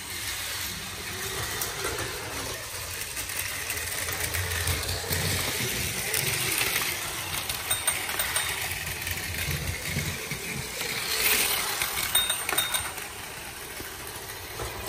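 Battery-powered toy trains running on plastic track: a steady small-motor whir with light clicking and clattering of the wheels over track joints and points, louder and clickier about three-quarters through as a train runs close by.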